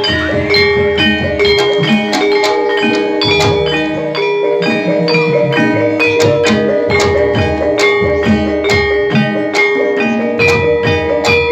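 Live Javanese gamelan accompanying a folk dance: struck metallophones ring out a fast, steady pattern of notes over low drum strokes.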